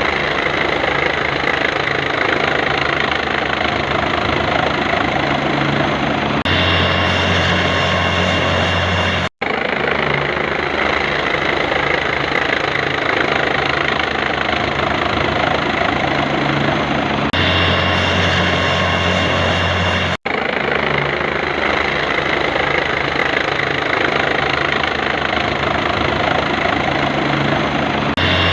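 Steady, loud noise of a rotor aircraft in flight, engine and blades running continuously. The sound drops out briefly twice and changes texture at even intervals, as if the same clip repeats.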